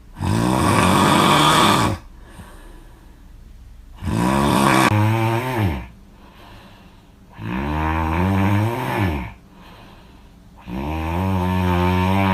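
A person snoring loudly: four long snores, each about two seconds, coming about every three and a half seconds. The first is rough and breathy, and the later ones have a pitched, droning rattle that bends in pitch.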